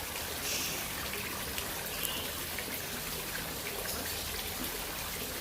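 Steady trickle of running water, with a couple of faint splashy patches about half a second and two seconds in.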